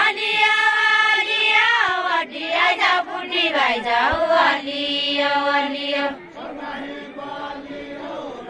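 A group of women singing a Nepali folk song together, holding long drawn-out notes that glide between pitches. About six seconds in the singing drops to quieter voices.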